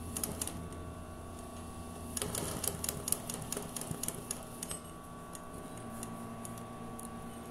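Sewing machine stitching in short runs during free-motion machine embroidery, the needle clattering rapidly. There is a brief run right at the start and a longer one from about two seconds in to nearly five seconds, over a steady hum.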